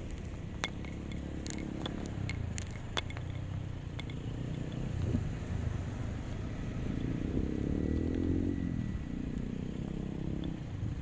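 Vehicle engine running, its pitch rising and falling about seven to nine seconds in, with a few sharp clicks in the first three seconds.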